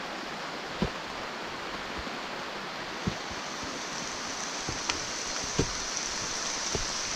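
Heavy rain falling steadily on rainforest foliage, an even hiss, with a few scattered soft knocks. A higher, thin steady hiss joins about three seconds in.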